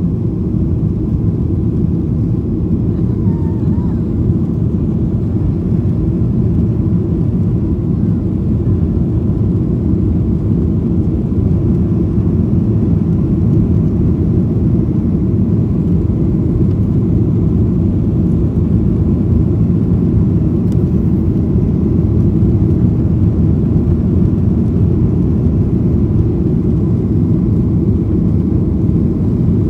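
Inside the cabin of a jet airliner during takeoff and initial climb: the engines at takeoff power and the rushing air make a steady, loud low rumble.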